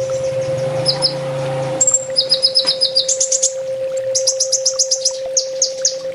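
Kolibri ninja sunbird singing: quick high chirps and rapid trills of short sharp notes, about eight a second, with brief pauses between phrases. A steady low hum runs underneath.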